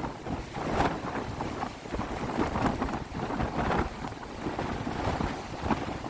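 Strong wind buffeting the microphone in gusts over storm waves crashing and surging on a rocky shore.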